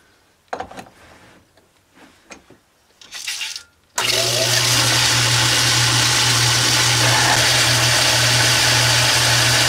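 A few light metallic clicks, then about four seconds in a metal lathe is switched on. It runs steadily with a loud low hum, spinning a cast iron engine cylinder with a boring bar in its bore.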